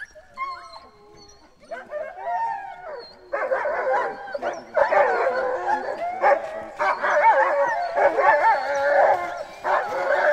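A pack of sled dogs giving scattered whines and yips, then breaking about three seconds in into a loud chorus of many overlapping howls and yelps.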